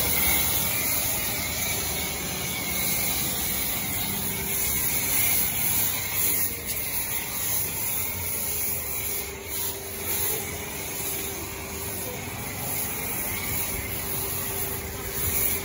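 Pressure washer with a foam-cannon lance spraying thick foam onto a motorcycle: a steady hiss of spray over the even hum of the washer's motor and pump.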